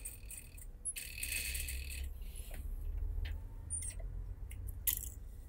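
Industrial sewing machine stitching, stopping about half a second in. Then fabric rustles briefly, followed by a few light clicks and rattles as the work is moved at the machine.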